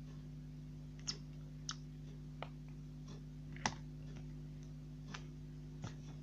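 Slime being handled, giving short irregular clicks and pops, about six in all, the loudest a little past the middle, over a steady low hum.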